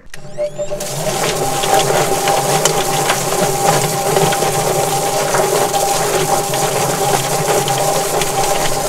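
Yardbird electric chicken plucker running: a steady motor hum while the spinning drum tumbles a scalded chicken against its rubber plucking fingers with irregular slapping knocks, and a garden hose sprays water into the drum.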